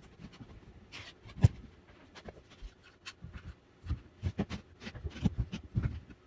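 White oak boards and small clamps being handled on a wooden workbench during a glue-up: one sharp knock about a second and a half in, then a run of low thumps and clicks as the boards are pressed together and the clamps are set.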